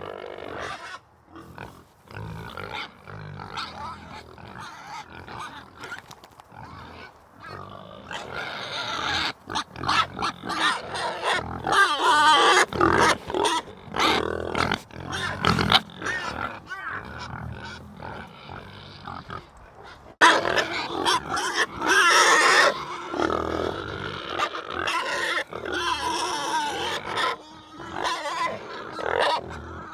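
Animal calls, irregular and overlapping, quieter at first and louder from about a third of the way in, with a sudden loud burst of calling about two-thirds of the way through.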